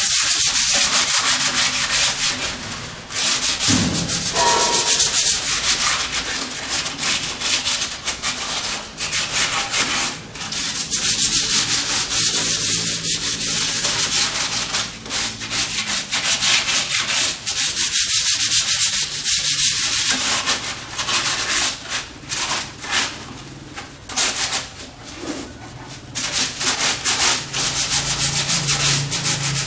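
Sandpaper rubbed by hand over a dried cement flower pot, in quick scratchy back-and-forth strokes that smooth its rough surface before painting. The strokes ease off briefly now and then.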